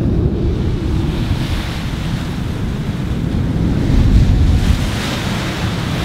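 Wind buffeting the microphone high on a sailing ship's mast: a heavy, gusting low rumble, with a rushing hiss of wind and sea that swells twice.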